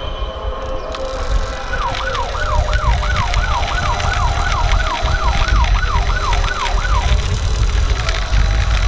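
Toy ambulance's electronic siren sounding a fast repeating falling wail, about two to three sweeps a second. It starts about two seconds in and stops about seven seconds in, over a steady low rumble.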